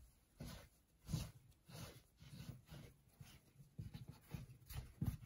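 Faint, irregular soft thumps and rubbing of hands kneading and gathering a ball of yeast dough on a floured wooden countertop, about one to two strokes a second.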